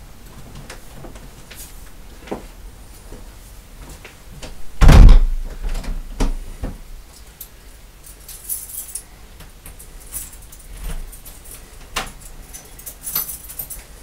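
Keys jangling and the lock of a front door being worked, with scattered clicks and bursts of jingling about eight seconds in and near the end. A single heavy thump about five seconds in is the loudest sound.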